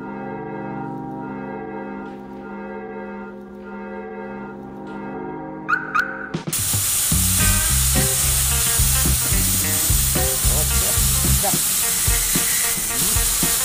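Intro music: a held, bell-like chord for about six seconds, a short whoosh, then a loud steady hiss over a pulsing bass beat.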